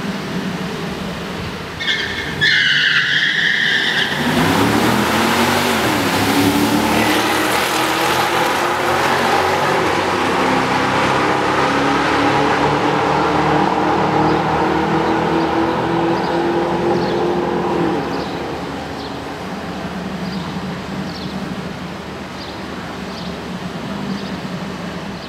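Two Chevrolet Camaros launching in a drag race: a short tyre squeal about two seconds in, then the engines run hard, their pitch climbing through the gears as the cars pull away down the strip. The engine sound fades after about eighteen seconds as the cars reach the far end.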